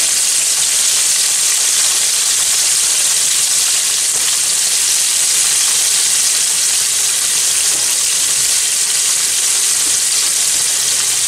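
Two flour-dredged grey snapper steaks shallow-frying in about an inch of hot oil: a steady, even sizzle.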